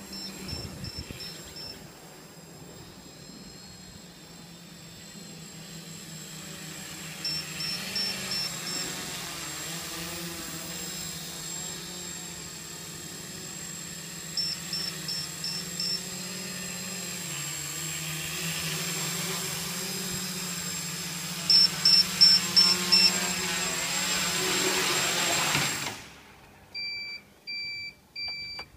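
Small quadcopter's four brushless 2212 920kv motors and propellers in flight, a steady buzzing hum that wavers with throttle. Over it, a high electronic beeper sounds five quick beeps about every seven seconds, loudest a little past the middle. Near the end the motor hum cuts off and three short beeps follow.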